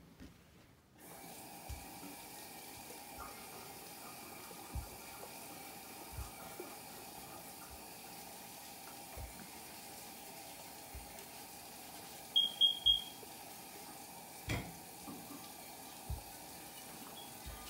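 Steam iron giving off a steady, watery hiss as it is pushed over a shirt, with occasional soft knocks as it moves and rests. About twelve seconds in, three short, high beeps come in quick succession.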